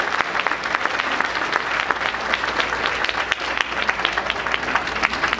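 Audience applauding steadily: a dense clatter of many hands clapping.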